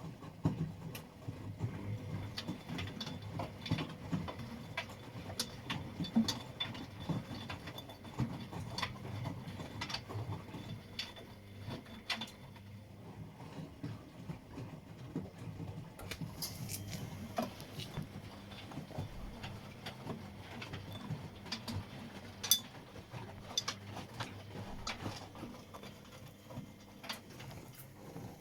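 Washing machine running, with a steady low hum under frequent irregular clicks and light knocks.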